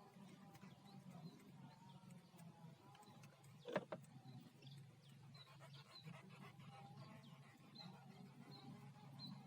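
Faint small-bird chirps over a steady low hum, with one sharp knock a little under four seconds in.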